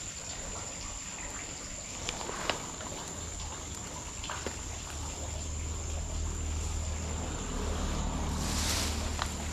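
Someone moving through grass at night: soft footsteps and rustling of stems, with a short brushing hiss near the end, over a steady high-pitched drone of night insects.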